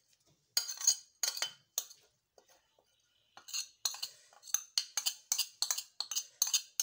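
Metal spoon clinking and scraping against a small plate over a stainless steel pot as ingredients are pushed off it: a few separate clinks, then from about halfway a quick run of light taps, several a second.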